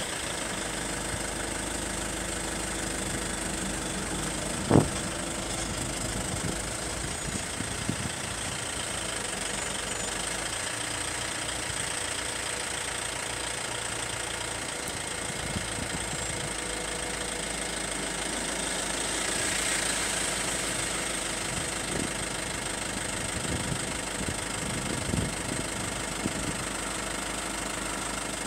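A vehicle engine idling steadily, with one sharp knock about five seconds in and a few fainter knocks later.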